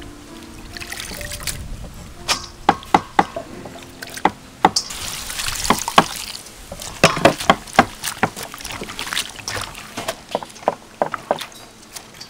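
Hands squeezing and mixing wet shredded vegetables in a bowl, with repeated sharp clicks and knocks. About five seconds in, water is poured into a metal bowl of shredded vegetables.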